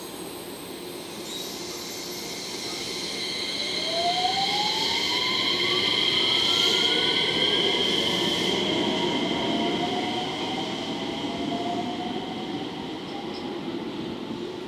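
JR West 113 series electric train running around a curve: steady high wheel squeal, with a motor whine that rises in pitch as it gathers speed. Louder in the middle, fading as it moves off.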